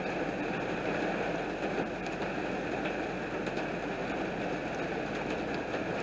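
Heavy downpour of rain: a steady, dense rush of water with a few faint ticks of individual drops.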